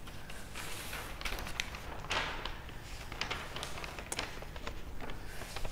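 Light footsteps and the rustle of a large paper chart being picked up and handled, with scattered small taps, over a steady low hum.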